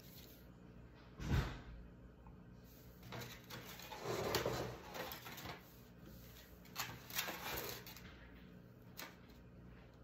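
Handling noises from a carved wooden parrot being turned around on its post: a thump about a second in, then wood scraping and sliding, and a few light clicks near the end.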